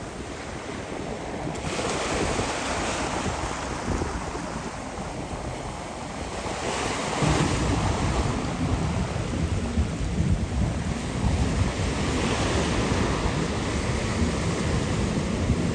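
Wind buffeting the microphone over rushing water, as when riding a jet ski on the sea; it grows louder, with a deeper rumble, about halfway through.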